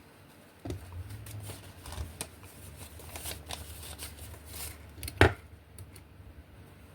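Handling noises: scattered light clicks and rustles over a low hum, with one sharp knock about five seconds in, after which the hum stops.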